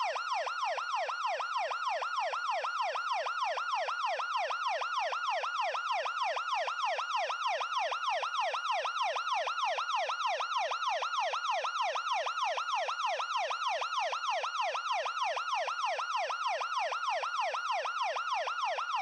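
Ambulance siren in fast yelp mode: a rapid, even up-and-down sweep of pitch about four times a second, steady and unchanging.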